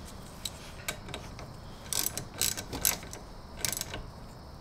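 Hand ratchet clicking in short irregular strokes as the brake-line bolt is tightened into a new ATV brake caliper, snugging it down to crush the sealing washers so the fitting won't leak.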